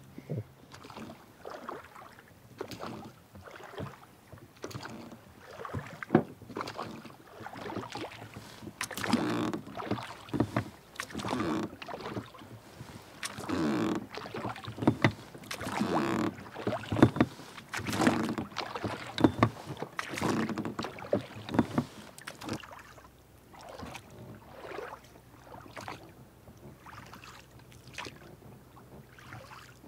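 A paddle dipping and pulling through calm water, a swish and splash about once a second, growing quieter and sparser in the last third.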